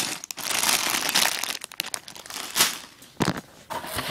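Clear plastic bag of Lego pieces crinkling as it is handled, in uneven bursts, with a short lull near the end.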